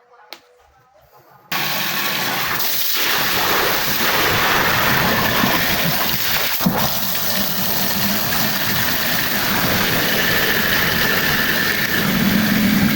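Water running hard and steadily into a kitchen sink and its drain, cutting in suddenly about a second and a half in.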